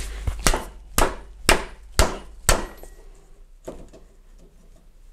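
Hammer blows on metal: five sharp strikes about half a second apart, then a lighter knock. They are struck against the tool on the stuck alternator pulley, which is threaded onto the alternator shaft, to break its thread loose.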